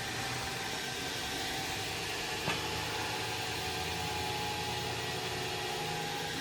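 Baldor 1022W one-horsepower double-spindle pedestal grinder running with nothing against its wheels, a steady, even whir with a faint motor hum. A single short click comes about two and a half seconds in.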